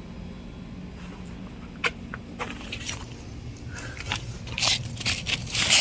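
Broken concrete and stone rubble crunching and scraping, with a few sharp clicks and then denser grinding and clinking that gets louder toward the end.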